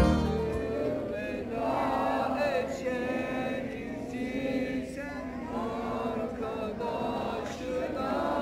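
A group of boys and young men singing a Turkish march together, in phrases of a few seconds each.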